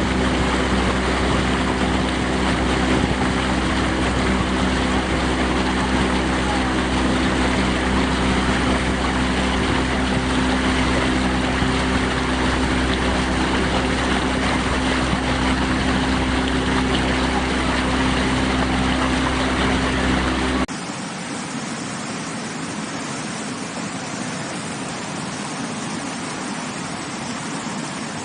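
Rushing water with a steady engine drone over it. About twenty seconds in, the drone cuts off abruptly, leaving only the quieter, even rush of water against rocks.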